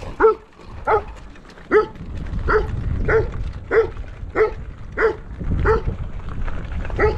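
A large dog barking repeatedly in an even rhythm, about ten barks in all, roughly three every two seconds, while chasing a bicycle. A low rumble runs underneath.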